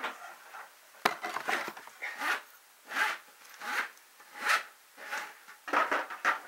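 Repeated short scratchy rubbing strokes, about one and a half a second, starting about a second in.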